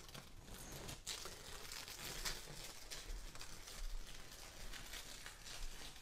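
Long strip of 3M blue painter's tape being peeled off a painted wall: a faint, continuous crackling rip with small ticks and a sharper snap about a second in.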